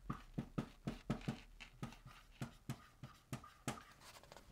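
Dry-erase marker writing on a whiteboard: a quick, irregular run of short squeaky strokes and taps as the letters are formed, thinning out near the end.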